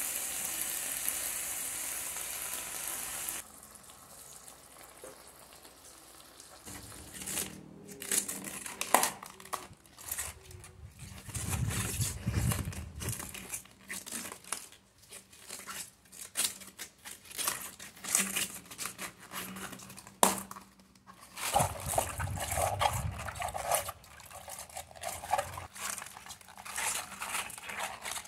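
Cabbage sizzling in a hot pan for the first few seconds, cutting off abruptly. Then crisp cabbage leaves are handled and torn by hand, giving sharp crackling snaps and rustles. Near the end the torn leaves are swished in a bowl of water.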